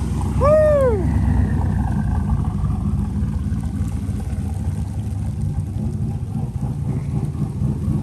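A car engine running with a deep, choppy rumble. About half a second in, a short tone rises and falls once over it.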